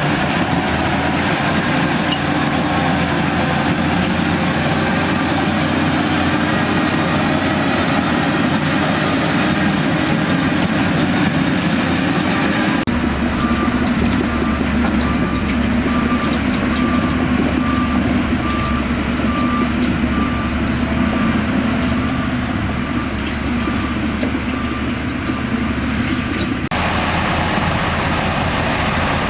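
Heavy diesel earthmoving machinery running steadily. In the middle stretch a reversing alarm beeps about once a second over the engine.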